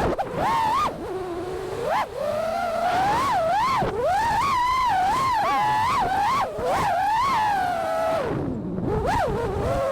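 FPV freestyle quadcopter's Flyfish 2207 1850 kV brushless motors and propellers whining, the pitch rising and falling quickly with the throttle. The pitch drops low about eight and a half seconds in, then climbs again.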